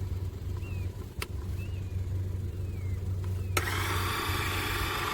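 VEVOR electric car jack's motor-driven hydraulic pump is switched on with a click about three and a half seconds in and then runs steadily with a whine, over a low hum. Its down button drives the jack up: the up and down controls are reversed.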